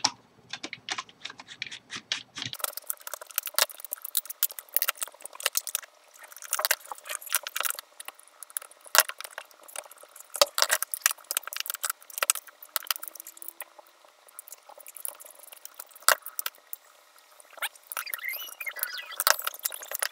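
Irregular small clicks, taps and clinks of hard parts being handled while a switch is swapped out on a dimmer-type speed controller.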